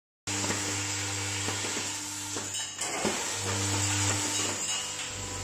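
Vibratory bowl feeders running: a steady low hum that eases off twice, with small plastic parts rattling and clicking as they travel round the bowls.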